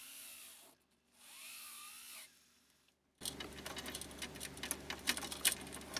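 Small rotary tool with a brush wheel running against soldered fine-silver chain links, cleaning up the solder joints. It comes in short snippets with abrupt cuts between them, and the last, louder stretch is a rapid scratchy clicking of the brush over the links.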